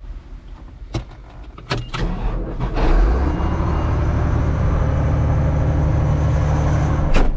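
A few sharp clicks, then a vehicle engine that starts about two to three seconds in and runs steadily. There is another sharp click near the end.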